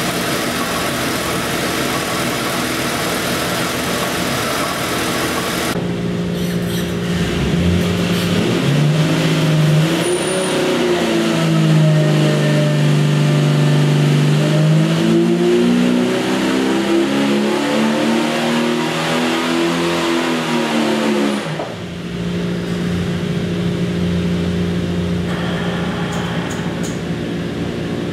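Jeep 4.6-litre stroker inline-six running on an engine dyno. It runs steadily at first. About six seconds in it gets louder as it goes under load, its pitch dipping and then climbing steadily through a power pull, and near the end it drops back abruptly to a steady run.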